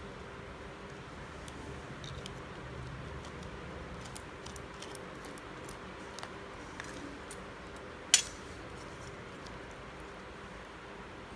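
Light clicks and taps of kitchen utensils being handled while prawns are stuffed with masala, over a steady background hiss. About eight seconds in comes one sharp clink that rings briefly, the loudest sound of the stretch.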